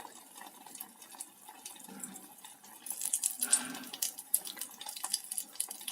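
Hot cooking oil crackling faintly in an electric kettle, with scattered sharp little pops that come thicker from about halfway through.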